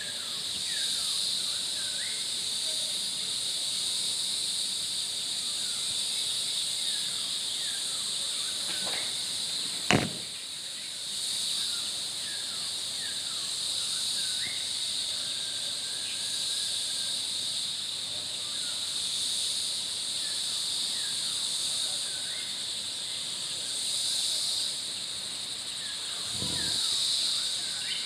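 Forest insects droning in a steady high whine that swells and fades every few seconds, with scattered short bird chirps over it. A single sharp click about ten seconds in.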